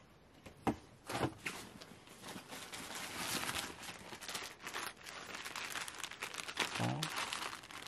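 Clear plastic retail packaging of a pair of wristbands crinkling as it is handled, a dense run of irregular crackles that starts about a second in and stops near the end.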